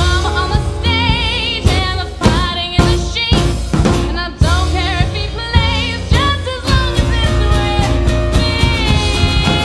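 Live Americana folk band: a woman singing with vibrato over acoustic guitar, upright bass, electric guitar and a drum kit. Strong drum hits accent the first six seconds or so, then the singer holds long notes over quick cymbal ticks near the end.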